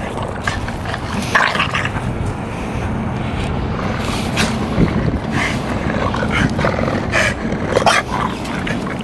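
A German Shepherd and a Boston Terrier tussling over a ball, with steady low play growling throughout and scattered short knocks and scuffs.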